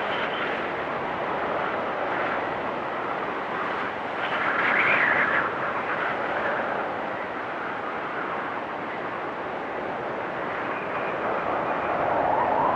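Storm wind blowing hard and steadily, with a strong gust swelling about five seconds in and another building near the end.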